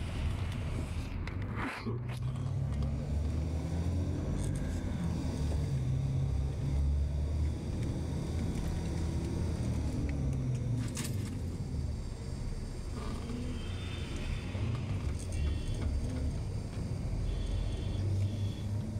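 Steady low engine and road rumble of a moving vehicle, heard from on board, with a bus passing close alongside about a second or two in.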